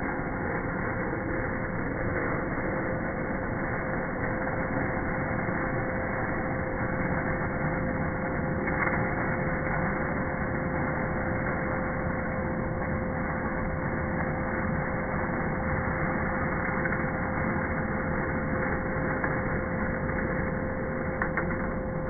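Vacuum cleaner running steadily with a constant motor hum, sucking up loose polystyrene insulation beads. There are a couple of sharp clicks near the end.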